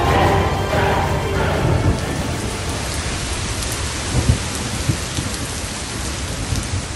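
Storm sound effect: steady heavy rain with rumbles of thunder, and a couple of louder booms about four and five seconds in.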